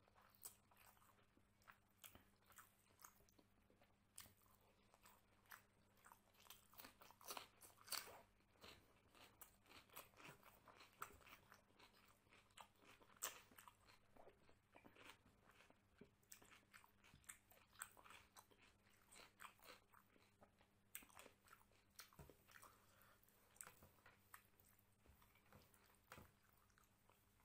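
A person chewing a mouthful of rice and mutton curry, faint and close to the microphone, with many small crunches and clicks.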